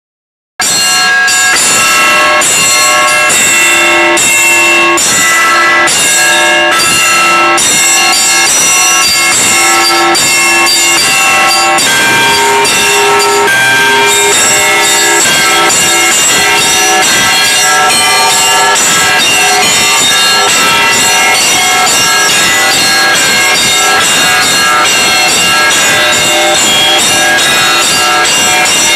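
Russian Orthodox church bells rung by hand in a zvon: small treble bells struck in a fast, dense pattern over a mid-sized bell struck about once a second. The bells start about half a second in, and the pattern shifts to a higher mid bell about twelve seconds in.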